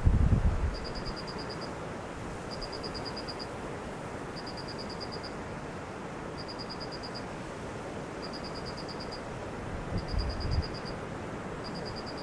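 Wind buffeting the microphone in gusts just after the start and again about ten seconds in, over a steady hiss of wind. A high-pitched insect chirps throughout in short pulsed trills, one trill about every two seconds.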